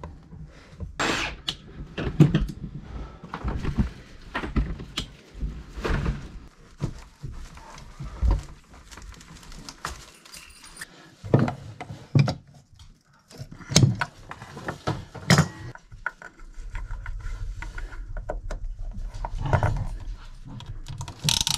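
Irregular knocks, clicks and rattles of hand work on plumbing: white PEX tubing and fittings being handled and fitted under a wooden bathroom vanity. A low steady hum joins in near the end.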